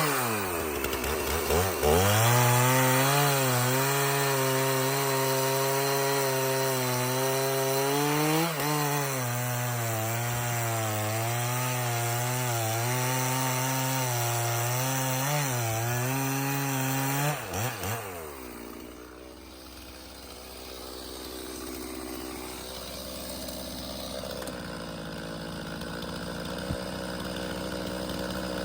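Stihl MS 391 two-stroke chainsaw cutting through red oak under load. Its engine note dips and recovers as the chain bites in, then holds steady with small wavers. About 17 seconds in the throttle is let off and the saw falls back to a quiet idle.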